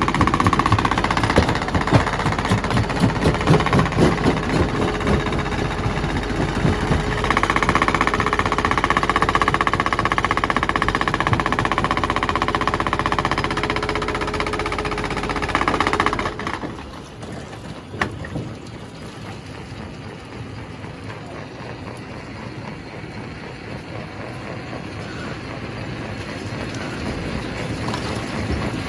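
Primary rock crusher running, with rocks knocking and grinding in it over a steady mechanical whine. About sixteen seconds in the loud crushing cuts off suddenly, leaving a quieter, even machinery rumble that slowly grows louder.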